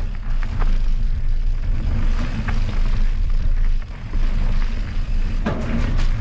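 Mountain bike rolling down a trail: a constant low rumble of wind on the microphone and tyre noise, with scattered sharp knocks and rattles from the bike over bumps.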